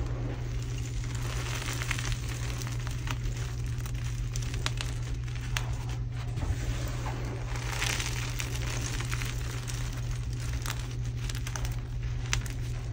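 Crumbled, dyed gym chalk being dug into and squeezed by hand: a dense, continuous crunching and crackling of small chalk pieces grinding and breaking against each other.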